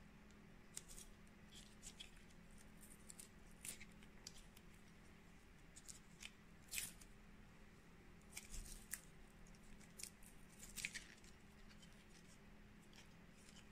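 Faint, scattered crackling and ticking of adhesive tape being pulled off a roll and pressed around a printhead's ribbon-cable connector, with a few slightly louder crackles midway and again later, over a faint steady hum.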